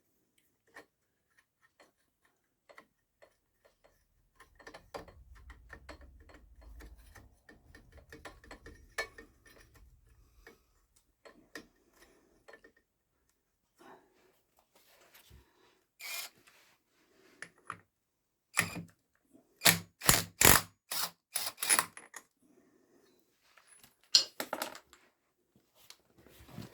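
Metal tools and clutch parts clicking, clinking and knocking during hand work on a motorcycle clutch. A run of about six sharp, loud knocks comes around two-thirds of the way in.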